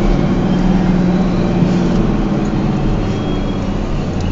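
Four-wheel drive's engine pulling steadily in second gear up a steep, rutted dirt climb, heard from inside the cab.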